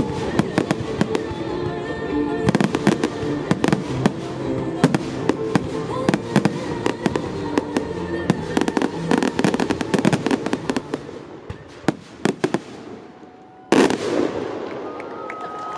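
Fireworks finale: rapid bangs and crackling from comets and aerial shells over the show's music, thinning out about 12 seconds in. A final loud burst comes near the end, and the crowd starts to cheer and whistle.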